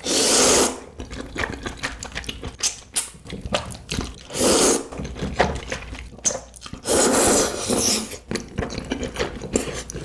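Close-miked eating sounds: three loud noisy bursts, one at the start, one about four seconds in and one about seven seconds in, with many small mouth clicks and smacks between them.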